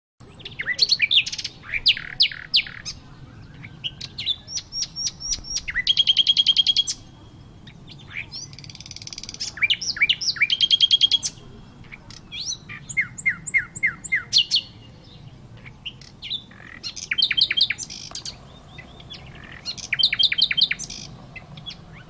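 Nightingale singing in about six loud phrases a second or two apart. Each phrase is a run of sharp repeated whistled notes and fast rattling trills.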